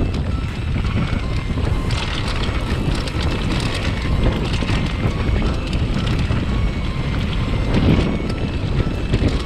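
Wind buffeting the action camera's microphone over the rumble of mountain bike tyres rolling fast on a gravel trail, with scattered small clicks and rattles from the bike and loose stones.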